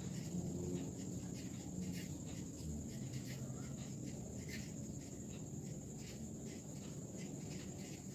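Marker pen writing on a sheet on the wall: a run of short, irregular scratchy strokes, over a steady high-pitched whine and low hum.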